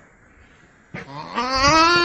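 Nutria (coypu) calling: after a short click about a second in, a drawn-out moaning call starts low and rises steadily in pitch, growing louder toward the end.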